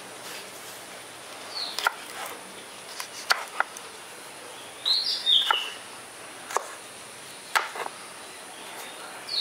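Chef's knife slicing a green bell pepper on a wooden chopping board: a handful of sharp, irregularly spaced knocks as the blade meets the board. A bird chirps twice with short falling calls.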